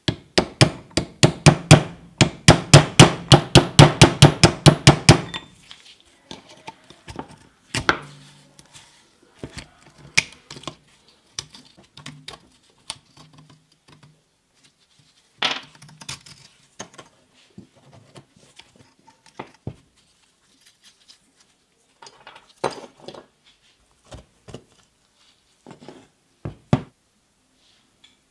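A hand hammer striking a drift set in the steel spindle of a Bosch GSH 5 E demolition hammer, in quick even blows about four a second for some five seconds, to drive out the tool-holder parts. After that come scattered metallic clicks and knocks as the rings and bearing parts are worked loose by hand.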